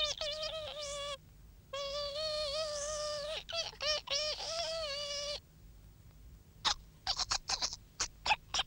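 High-pitched, squeaky wordless cartoon vocal sounds in long held, wavering notes, breaking off about halfway, followed near the end by a quick run of short sharp squeaks.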